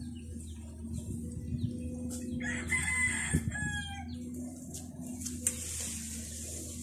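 A rooster crowing once, about two and a half seconds in, the call held and then falling in pitch over about a second and a half, above a steady low hum.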